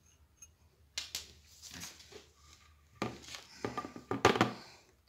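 Clinks, taps and scrapes of a glass mirror tray with a crystal-bead border and a metal stand post being handled on a table as the post is fitted with its screw. There is a light click about a second in and several sharper knocks between about three and four and a half seconds, the loudest near the end.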